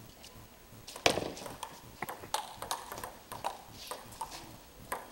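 Table tennis rally: the celluloid ball clicks in quick alternation off the paddles and the table, several hits a second. The rally starts about a second in, with its loudest hit first.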